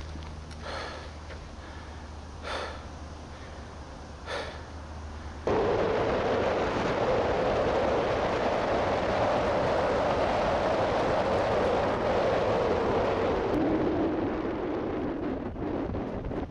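Wind buffeting an action camera's microphone during a fast mountain-bike descent. It starts suddenly about five seconds in and stays loud and steady. Before that there is a quieter stretch with a low hum and a few short knocks.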